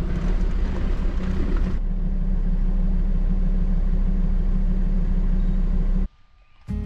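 Four-wheel drive's engine and tyre noise on a dirt road, a steady low rumble. The sound changes about two seconds in and cuts off near the end.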